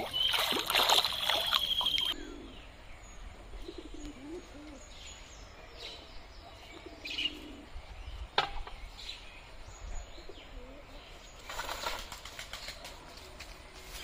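A hooked fish thrashing and splashing at the water's surface for about two seconds, then stopping abruptly. After that, birds call outdoors: soft low calls and a few short chirps, with a sharp click about halfway through.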